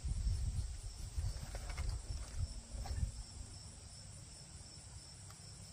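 Crickets chirping steadily in the background, with an irregular low rumble for about the first three seconds that then dies away.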